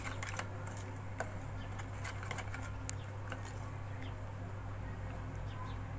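Small wire whisk beating thick gram-flour batter in a bowl, mixing in baking soda: faint wet stirring with scattered light clicks, over a steady low hum.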